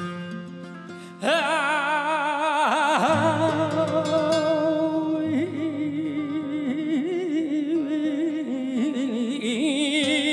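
Flamenco cante minero sung by a male cantaor with acoustic flamenco guitar. A few plucked guitar notes come first; about a second in, the voice enters loudly on a long melismatic phrase with wide vibrato, with no clear words, winding on over the guitar.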